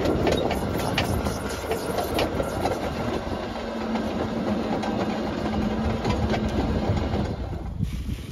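Anchor chain rattling out through the windlass at a catamaran's bow after the bridle has been attached, a dense run of metallic clicks. A steady hum joins about three seconds in, and the rattle stops shortly before the end.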